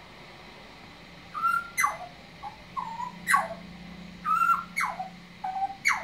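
Australian butcherbird singing: after a short pause, about a second and a half in, a phrase of clear whistled notes begins, some held level and several sweeping sharply down in pitch.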